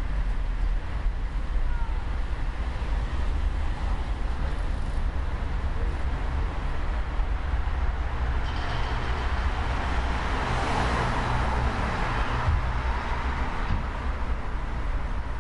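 Street traffic ambience at night: a steady low rumble of traffic, with one louder vehicle passing, swelling to a peak about two-thirds of the way through and then fading.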